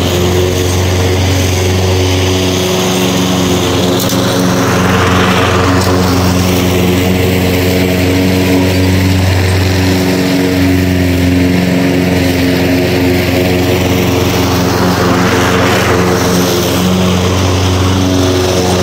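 Toro walk-behind gas lawn mower engine running steadily at a constant speed, with a rushing noise higher up that swells and fades twice.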